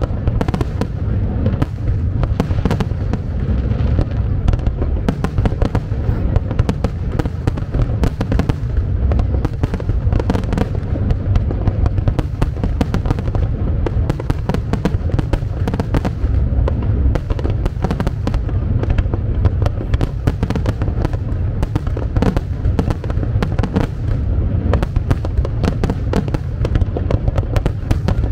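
Aerial fireworks display: a dense, unbroken barrage of shell bursts and crackle, with bangs following one another many times a second over a deep rumble.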